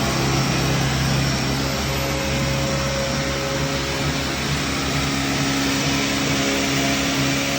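Big log-ripping saw on a sawmill carriage running steadily as it cuts lengthwise through a log, a constant motor drone with a few steady tones under it.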